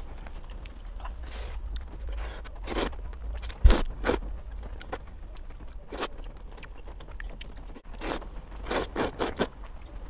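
Close-miked eating: noodles slurped and chewed in short bursts, with chopsticks stirring through the noodles in the bowl. A single low thump, the loudest sound, comes a little under four seconds in.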